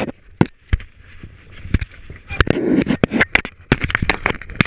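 Airsoft gunfire: sharp single shots at irregular intervals, a few a second, bunching up in the second half.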